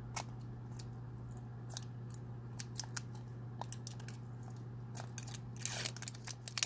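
Thin clear plastic protective film crackling and crinkling in short, irregular clicks as it is peeled by hand off a Sphero Mini robotic ball, with a denser flurry of crackles near the end. A steady low hum runs underneath.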